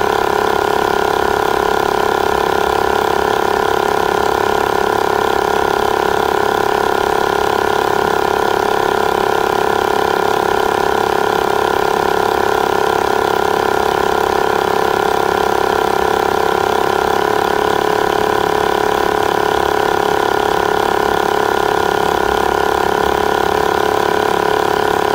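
Wheeler portable electric tyre inflator running steadily, its small piston compressor pumping air as the pressure climbs from 38.5 psi toward its preset 40 psi.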